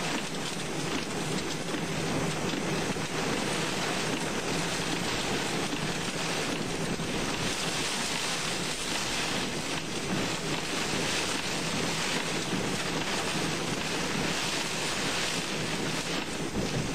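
Heavy thunderstorm rain and strong wind beating on a moving car, heard from inside the cabin as a steady rushing noise.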